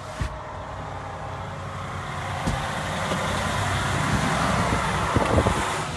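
Heavy truck's engine idling, heard from inside the cab. Over it a rustling noise builds over the last few seconds, with a few light knocks.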